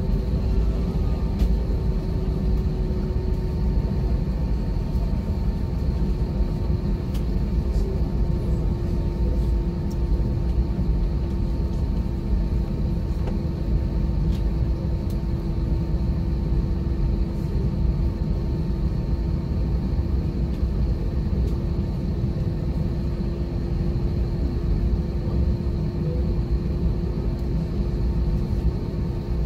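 Cabin rumble of an Airbus A320 taxiing, its jet engines and airframe running steadily at low power, with a steady hum that sinks slightly in pitch.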